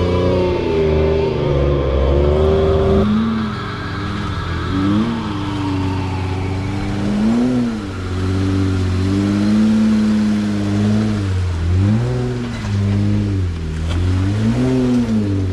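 A 4x4's engine revving up and down repeatedly under load while off-roading, its pitch rising and falling many times.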